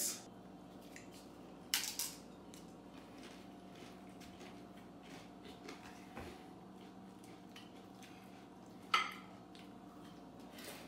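Faint steady hum in a quiet kitchen, broken by two short clatters as tortilla chips are dipped into a bowl of guacamole on a plate, about two seconds in and again near the end.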